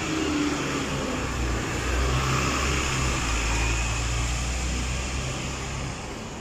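Street traffic: a motor vehicle's engine running close by with a low rumble over a steady wash of road noise, easing off a little near the end.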